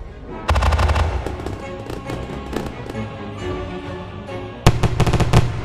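Fireworks crackling and popping over background music: a dense volley of crackles about half a second in, scattered pops after it, and a second volley near the end.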